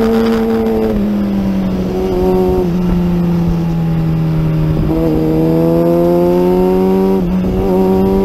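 Onboard sound of a racing superbike's engine at speed. Its pitch drops in steps during the first three seconds, holds low and steady through the corner, then climbs under throttle from about five seconds in, with a brief dip for an upshift near the end.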